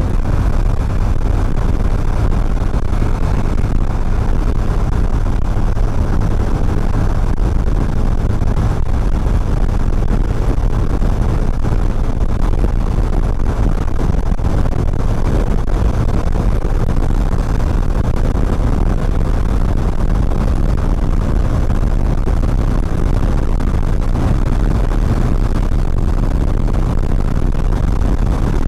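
Steady wind rush and road noise from a motorcycle ride, heard on a body-mounted action camera, with the motorcycle's engine running underneath at an even speed.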